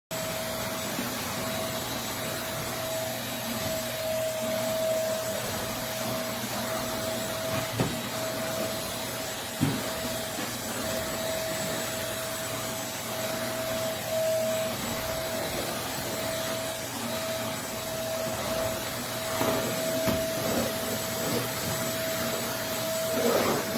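Eureka Blaze stick vacuum running, a steady whine over a rush of air, with a couple of light knocks about eight and ten seconds in.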